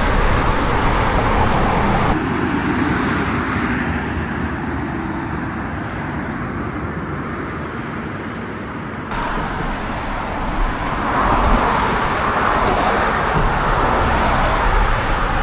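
Road traffic noise: a steady rush of passing vehicles. The noise shifts abruptly twice, about two seconds in and again about nine seconds in.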